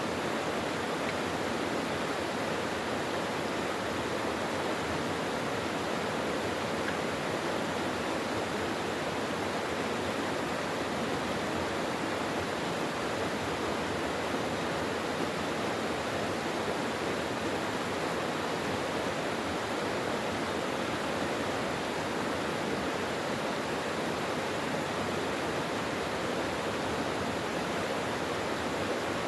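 Mountain valley stream flowing, a steady rushing of water without pause.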